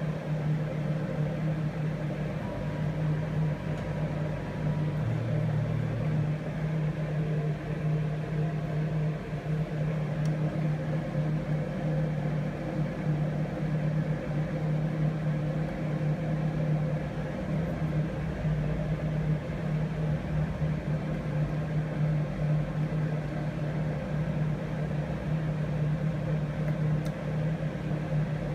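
A lathe running with a steady machine hum that holds at one pitch throughout.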